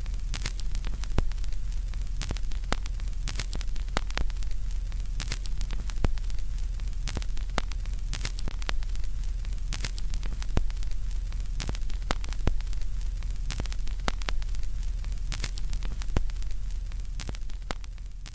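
Old-recording crackle: irregular clicks and pops over a steady hiss and a low hum, easing slightly near the end.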